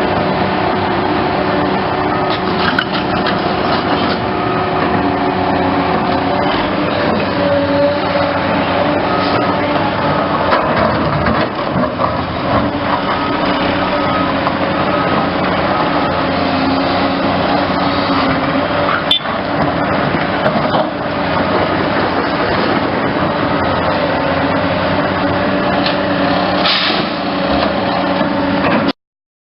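Big excavator's engine running steadily, its pitch shifting a little now and then as it works; the sound cuts off suddenly near the end.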